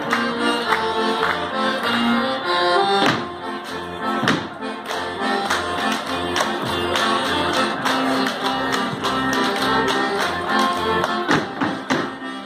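Bavarian folk dance music playing steadily, with several sharp hand slaps and claps from Schuhplattler dancers cutting through, about three seconds in, a second later, and near the end.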